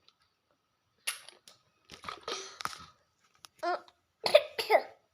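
A small child coughing in a run of short coughs, the later ones voiced and loudest near the end, while learning to drink plain water and getting it down the wrong way.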